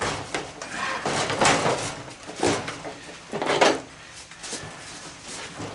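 Hard plastic parts of a horse prop's shell being pulled apart and handled: a series of scraping, rubbing noises about a second apart.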